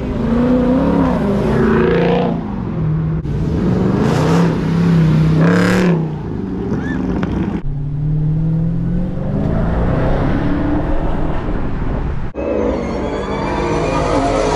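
Muscle car engines revving and accelerating hard, in short clips joined by abrupt cuts, with sharp rev blips about four and about six seconds in.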